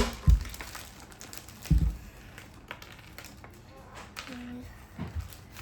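Light clicks and taps of small craft pieces being handled on a board, with three dull thumps.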